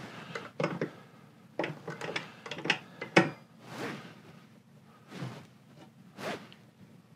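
Irregular clicks, knocks and sliding scrapes of tools and club parts being handled on a workbench, the sharpest knock about three seconds in, followed by a few softer swishes.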